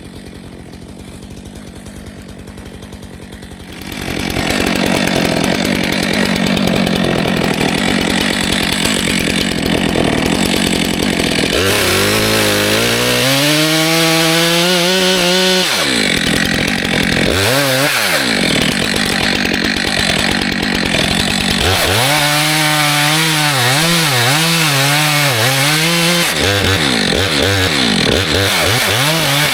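Stihl 462C two-stroke chainsaw fitted with an Egan Straight Shot aftermarket exhaust, running quieter for the first few seconds and then going to full throttle about four seconds in. While it cuts, its engine pitch repeatedly dips and recovers as the chain bites into the wood.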